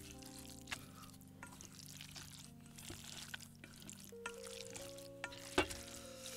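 Soft background music with held chords, with a few light clicks scattered through it; the sharpest click comes about five and a half seconds in.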